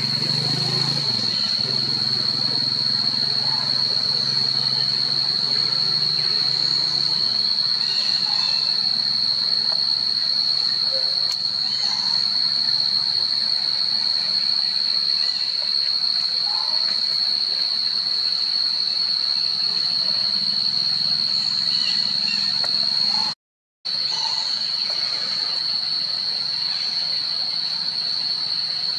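Insects droning steadily at one high pitch, cutting out for a moment about 23 seconds in.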